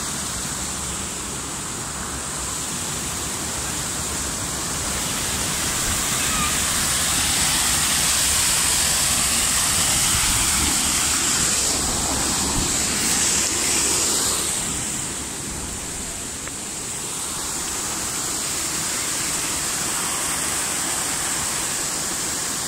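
Steady rush of a small stream tumbling over stones, growing louder for several seconds in the middle before easing off.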